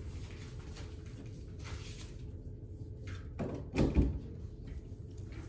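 Two dull knocks about half a second apart, roughly three and a half seconds in, like a door or cupboard being shut, over a steady low room hum.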